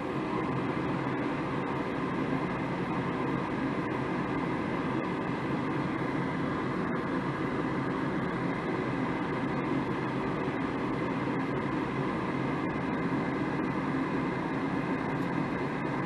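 Draft inducer motor of a Goodman 80% single-stage gas furnace running with a steady hum: the pre-purge at the start of a call for heat, before the hot surface igniter comes on.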